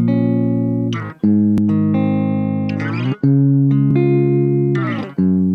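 Direct-input guitar recording playing back: sustained, ringing chords, a new one struck about every two seconds (three times), each change preceded by a short scratchy noise. This is the raw, un-denoised take that still carries its background noise.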